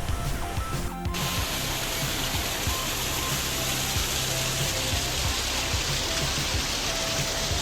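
Background music throughout, with a steady rushing-water hiss that begins abruptly about a second in.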